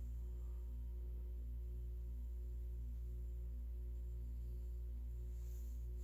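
Steady low electrical hum with a few faint constant overtones. No other distinct sound stands out.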